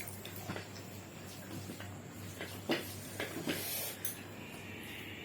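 Quiet eating sounds from a plate of hot phena bhat being mixed by hand: a few soft clicks and squishes, clustered in the middle, over a low steady hum.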